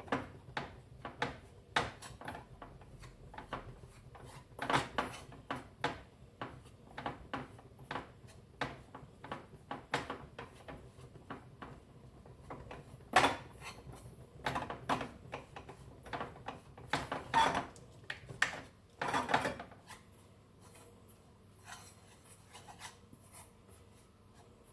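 A utensil scraping and stirring in a pan of melting jaggery mixed with dry ginger and turmeric powder, in irregular strokes and knocks that stop about 20 seconds in.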